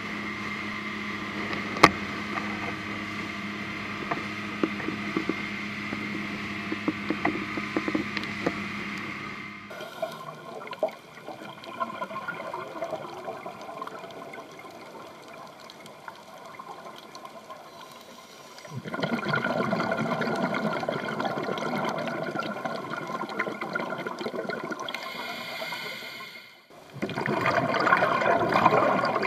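A boat engine running steadily, with a few clicks. After a cut, the muffled underwater sound of scuba diving, with long loud rushes of a diver's exhaled regulator bubbles: one starting just past halfway and another near the end.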